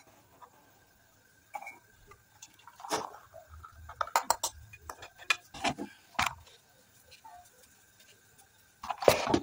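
Kadha being strained from a pan through a metal tea strainer into a ceramic mug: scattered light clinks and taps of metal on pottery with some liquid pouring, and a louder clatter near the end.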